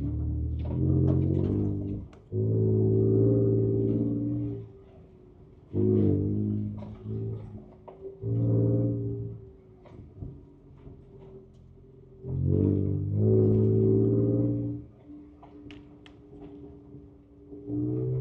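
Ford Ranger Raptor's twin-turbo V6 heard from inside the cab, swelling in about six bursts of throttle of one to two and a half seconds each, dropping back to a quieter steady hum between them.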